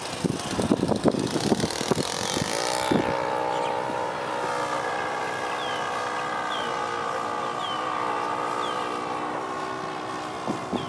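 Saito 72 four-stroke glow engine of a radio-controlled Sig Kadet Senior model airplane running in flight, with gusts of wind on the microphone for the first few seconds. About three seconds in, the engine note rises briefly, then holds as a steady drone that slowly falls in pitch as the plane flies away.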